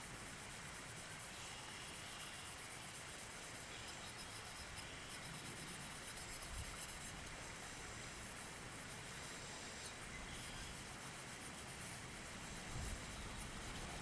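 Steel wool buffing the bare steel frame of a Great Neck No. 9 coping saw: a faint, steady scratching hiss, with a light knock near the end.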